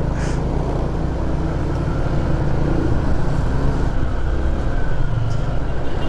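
Steady low rumble of a vehicle's engine and road noise on the move.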